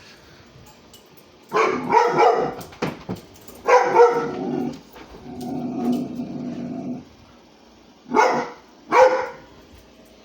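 A dog barking at intervals: a few barks, a steadier drawn-out sound for about two seconds in the middle, then two short sharp barks near the end.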